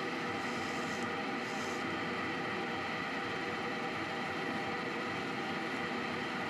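Small motor running steadily, spinning a titanium ring on a mandrel as it is sanded by hand, with a steady hum made of several fixed tones. A faint hiss of abrasive rubbing on the spinning ring comes and goes in the first couple of seconds.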